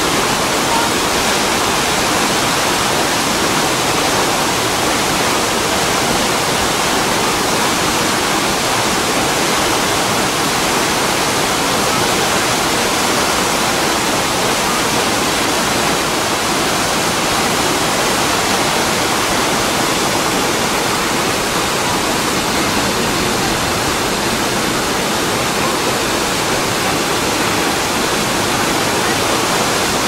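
A river's waterfall pouring over a low rock ledge into a churning pool: a loud, steady, unbroken rush of falling water.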